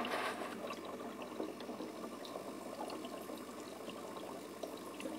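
Aquarium sponge filter running: a steady, faint bubbling hiss with scattered small ticks.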